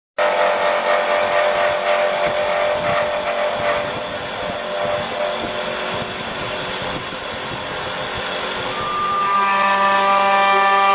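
CNC wood lathe turning a wooden baluster: the cutting tool shaves the spinning blank with a steady, noisy hiss, loudest in the first few seconds. About nine seconds in, a steady whine with several pitches comes in as the machine's router spindle runs.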